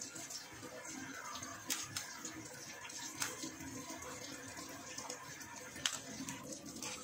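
Thin plastic wrapping rustling and crinkling as a block of tempeh is slit and peeled open with a kitchen knife, with three sharp clicks along the way.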